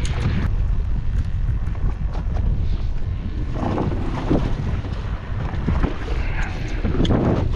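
Wind rumbling on the microphone aboard a small fishing boat in rough water, with a few louder moments about halfway through and near the end.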